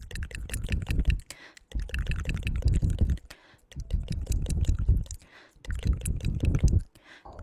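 ASMR mouth sounds close to the microphone: rapid wet tongue and lip clicks in four bursts of about a second or more each, with short pauses between.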